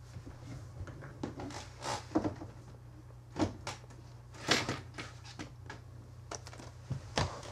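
Scattered knocks, bumps and clatters of someone moving about and handling things at a desk, a few of them sharper than the rest, over a steady low hum.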